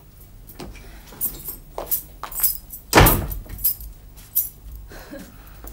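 Keys jangling and a door being unlocked and opened: a run of sharp clicks and knocks, the loudest a thump about three seconds in.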